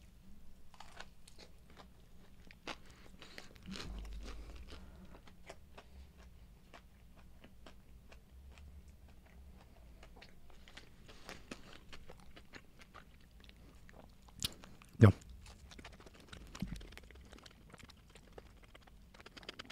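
Close-up chewing and crunching of crispy fried chicken breast, with a steady scatter of small crackles and one loud thump about three-quarters of the way through.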